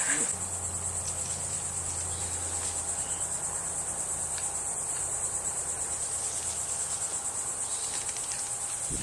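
Insects chirring in a steady, high, finely pulsing trill, with a faint low hum underneath.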